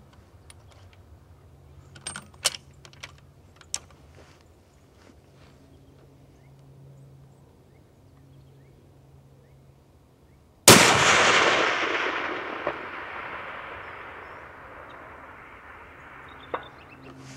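A single shot from a custom 7mm WSM rifle about ten seconds in, its report dying away slowly in a long echoing tail over several seconds. A few sharp clicks come a few seconds before the shot.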